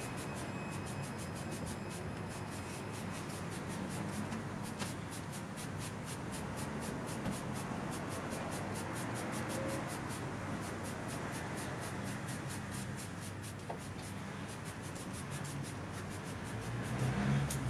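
A brush scrubbing a wheel: steady scratchy rubbing in quick, regular strokes.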